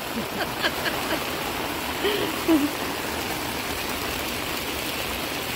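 Steady rain falling, an even hiss of water, with faint voices briefly about two seconds in.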